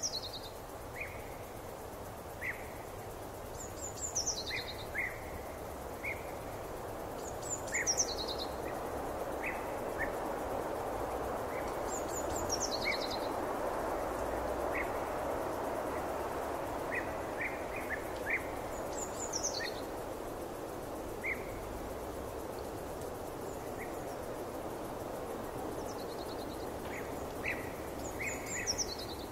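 Forest ambience: a steady rushing hiss that swells slightly in the middle, with birdsong over it. One bird repeats a short, high phrase of notes stepping down in pitch, several times, a few seconds apart. Short, lower chirps are scattered between.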